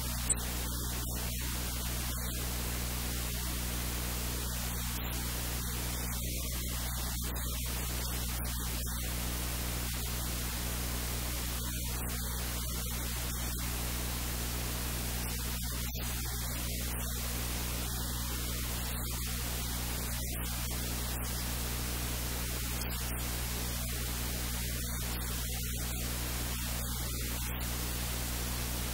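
Steady electrical hiss with a low mains hum, with one sharp click about a third of a second in.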